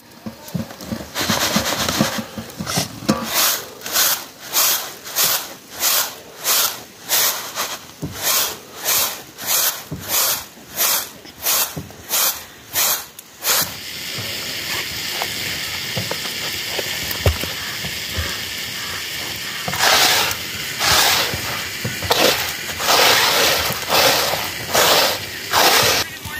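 Rice grains swishing on a bamboo winnowing tray as it is worked by hand, in a regular rhythm of about three swishes every two seconds for the first half. After that comes a steady hiss, then irregular rustles of grain near the end.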